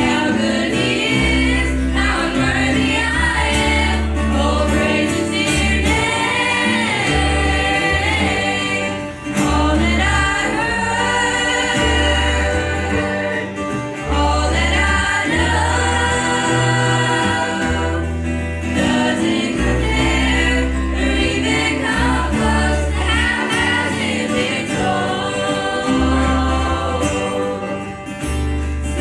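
Gospel group singing in harmony with instrumental accompaniment, a bass line moving underneath.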